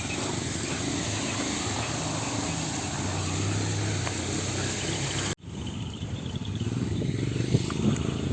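Motorcycle engine running as the bike rides over a rough hill track, with a steady wash of wind and road noise. The sound drops out abruptly about five seconds in and picks up again, and a sharp knock comes near the end.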